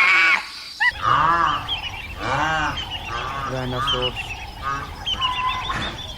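Repeated honking bird calls. They follow a brief higher-pitched animal call in the first second.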